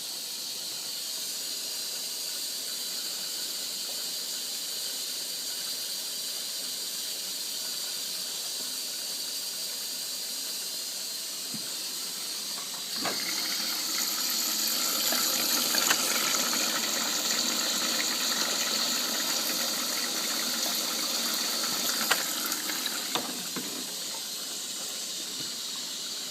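Bendix 7128 front-loading washing machine running a wash: a steady hiss of water that gets louder and fuller about halfway through, with a few sharp knocks.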